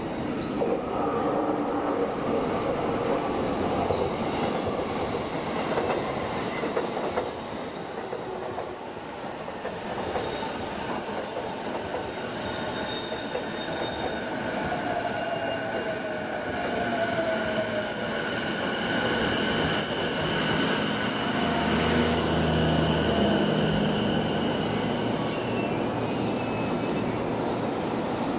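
Electric locomotive-hauled train rolling slowly over curving track, with a steady rumble and rail clatter. High squealing tones from the wheels on the curves come in about halfway and grow louder toward the end.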